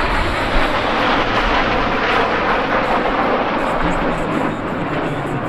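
TS-11 Iskra jet trainers flying past, their turbojet engines making a steady jet roar that is loudest about two seconds in.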